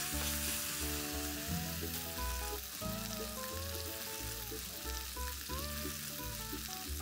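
Onion, tomato and spice curry-paste mixture sizzling steadily in hot oil in a wok, under soft background music with a slow melody.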